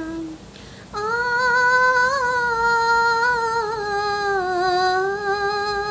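A woman singing a Nepali song unaccompanied. One held note ends, and after a short breath she holds one long note for about five seconds, its pitch wavering slightly and dipping near the end.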